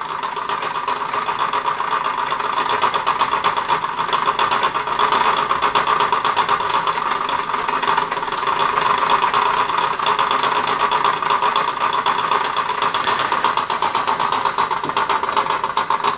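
Castle Products Model B toy steam engine running slowly under steam: a steady mechanical running with a hiss of steam. It is short of pressure because the loose safety valve is venting steam, which is the owner's diagnosis.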